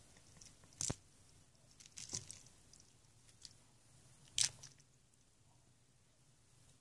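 A cat dunking a soft toy mouse in a stainless steel water bowl: three short splashes and knocks, about one, two and four and a half seconds in, the last the loudest.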